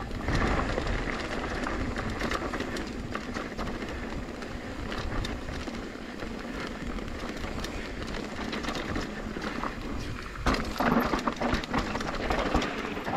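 Mountain bike descending a rough dirt downhill trail: tyres rumbling over the ground while the chain and frame rattle and clatter steadily. About ten seconds in, the clatter gets harder and louder as the bike hits a run of dirt jumps.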